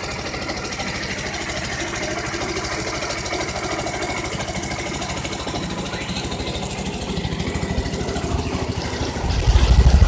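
Small boat engine running steadily with a fast low putter, joined by a much louder low rumble near the end.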